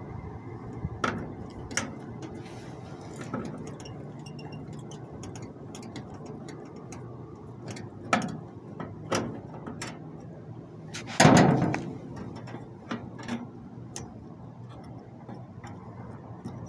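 Scattered clicks and knocks of tools and metal parts being handled on an air-conditioner outdoor unit, over a steady low hum. The loudest is a short clatter about eleven seconds in.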